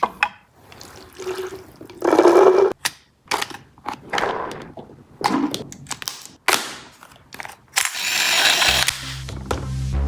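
Toy M4 gun making a string of irregular clicks and short rasping bursts. Electronic music with a steady beat comes in near the end.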